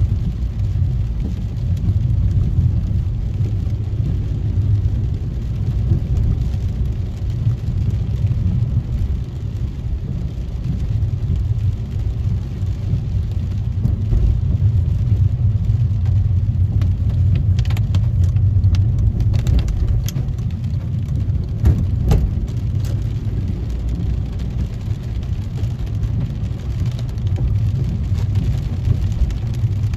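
Car driving on wet roads in rain, heard from inside the cabin: a steady low rumble of engine and tyres, with a few sharp clicks a little past the middle.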